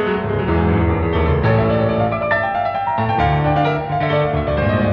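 Piano music playing, a steady run of notes and chords.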